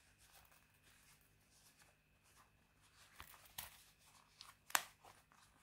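Faint rustling and handling of a canvas and leather belt pouch being folded closed by hand, starting about three seconds in, with a few small taps and one sharper click near the end.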